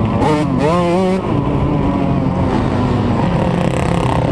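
Dirt bike engine, heard from the rider's helmet camera, revving through the gears on a motocross track: the pitch climbs and drops in quick sweeps in the first second, then holds steadier at lower revs.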